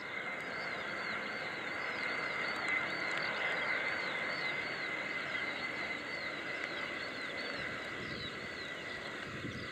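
An Airbus A320-214's CFM56 jets on final approach, heard as a steady rushing noise with a high whine. Over it, birds chirp in a quick, regular series, about three short calls a second.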